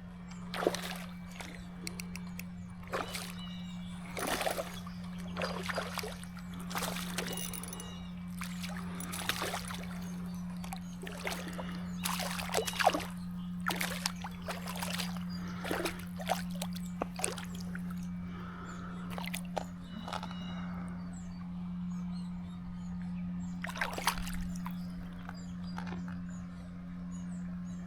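Irregular splashing and sloshing of creek water as a small smallmouth bass is fought and brought to hand, over the steady trickle of the stream. A steady low hum runs underneath.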